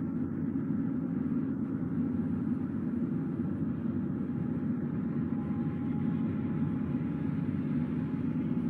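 A car driving: steady low rumble of road and engine noise, unchanging throughout, with a faint steady hum on top.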